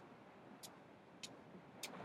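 Faint wash of ocean surf, with three sharp high ticks evenly spaced a little over half a second apart.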